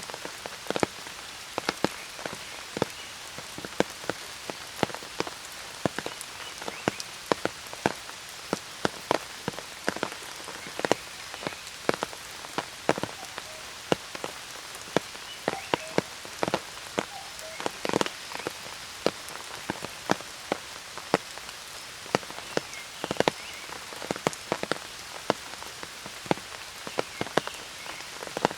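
Steady rain, with large drops tapping sharply and irregularly on an umbrella overhead over a constant hiss of rainfall.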